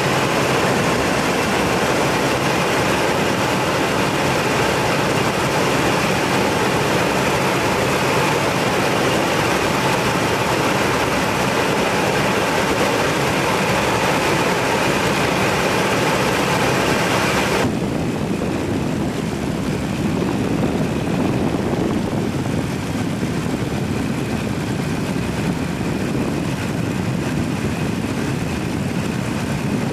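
Light propeller aircraft's piston engine running steadily. About eighteen seconds in, the sound abruptly turns duller, losing much of its hiss.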